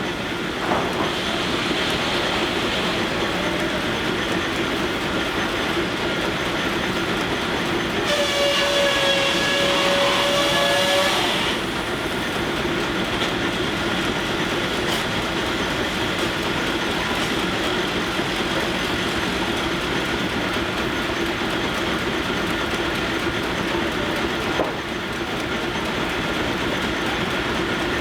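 Sawmill driven by steam engines through line shafts, running steadily. A steam whistle blows once, for about three and a half seconds, about eight seconds in.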